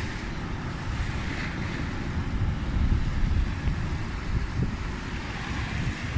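Wind buffeting the microphone with a steady low rumble, over the hiss of small waves washing up on a sandy beach.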